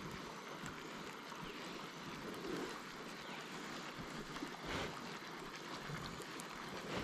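Faint steady river ambience: water moving around a kayak with light wind on the microphone, and a brief swish of water about five seconds in.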